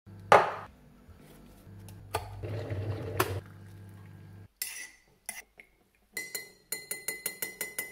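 Tea being made in a ceramic mug: a kettle set down on a stone worktop with a sharp knock, hot water poured into the mug, then a teaspoon clinking quickly and repeatedly against the mug's side near the end.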